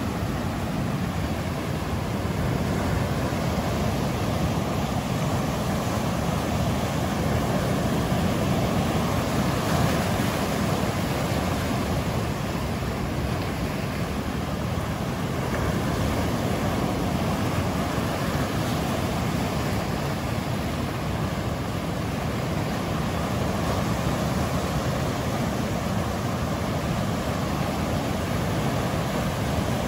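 Ocean surf breaking and washing onto a sandy beach, a continuous wash of waves that swells and eases slightly.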